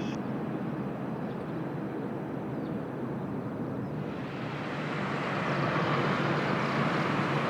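Jet airliner on final approach, its engines a steady rushing roar that grows louder from about halfway through as the plane comes nearer.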